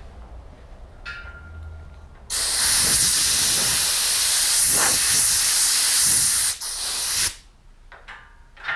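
Steady spraying hiss lasting about five seconds, stopping sharply about seven seconds in: water sprayed onto the paint from a spray bottle as lubrication for wet sanding.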